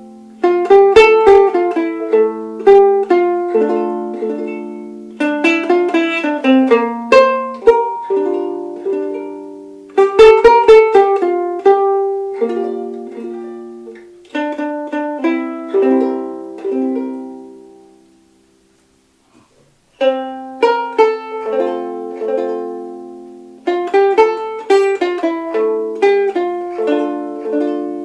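Soprano ukulele playing a plucked melody with chords, each note ringing and decaying. The playing dies away about eighteen seconds in, is silent for about two seconds, and starts again.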